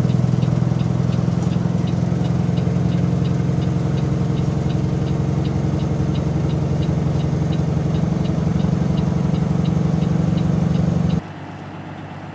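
Caterpillar C15 diesel engine of a 2006 Peterbilt 357 log truck running steadily, heard from inside the cab as the loaded truck drives down a snowy road, with a light ticking about two to three times a second. About a second before the end it cuts to a quieter engine sound heard from outside.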